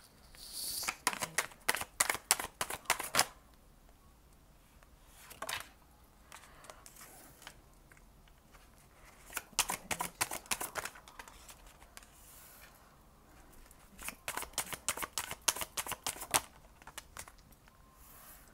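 Tarot deck shuffled by hand in three bursts of rapid flicking card clicks, with quiet pauses between them.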